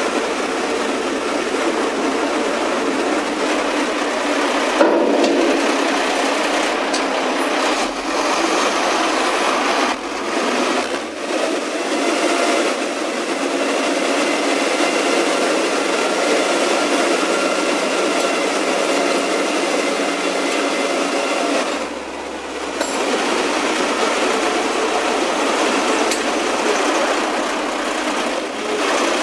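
Heavy construction machinery running steadily: the diesel engine drone of a boom lift and crane at work, with a few steady tones in it.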